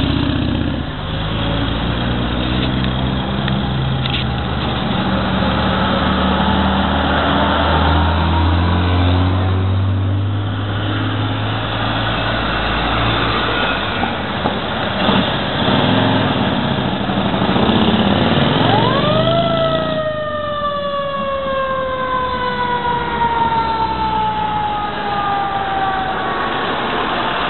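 Engines of passing vehicles, among them a WWII-style military jeep and motorcycle, running in slow traffic. About nineteen seconds in, a siren winds quickly up to a high pitch and then slowly winds down over several seconds.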